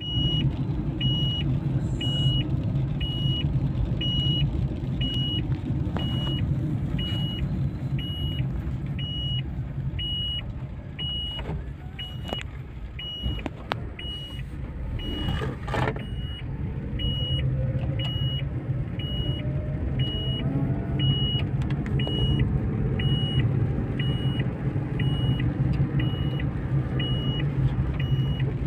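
Inside a moving car: steady low engine and road rumble, with a short high electronic warning beep from the car repeating evenly about one and a half times a second throughout. A few light knocks come about halfway through.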